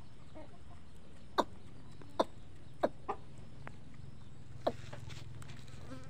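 Aseel chickens clucking: five short, sharp clucks, each a quick falling note, the fourth following close on the third.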